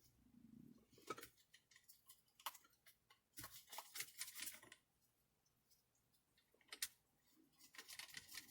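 Faint, light metallic clicks and scrapes in short irregular clusters as the steering wheel's large center bolt is started and threaded onto the steering shaft.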